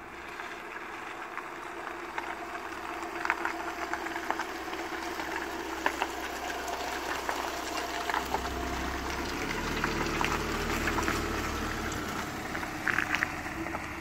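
A van's engine idling, its low hum growing stronger about eight seconds in as it comes closer, over a steady hiss, with a few sharp clicks scattered through.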